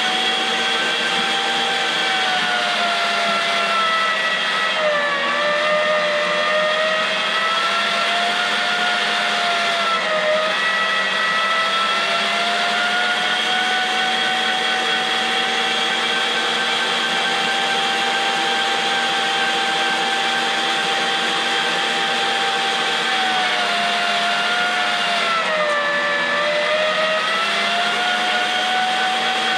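STX Turboforce electric meat grinder running steadily while grinding deer meat and pork shoulder, with a loud whine. The whine drops in pitch briefly a few times, around 5 s, 10 s and 25 s in, then recovers.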